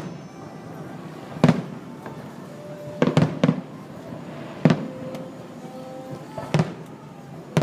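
Fireworks exploding: a run of sharp bangs, about seven in all, coming every second or two and sometimes two or three in quick succession, with faint music underneath.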